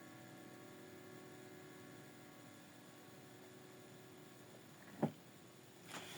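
Faint steady electrical hum from a loudspeaker, with the last notes of the music fading away over the first few seconds. A single short click about five seconds in.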